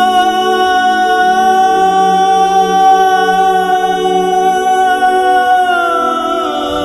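Background vocal music: one long held sung note over lower sustained tones, the note sliding down near the end.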